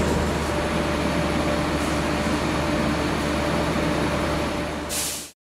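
NR class diesel-electric locomotive idling steadily with a low hum. A short hiss comes near the end, then the sound cuts off suddenly.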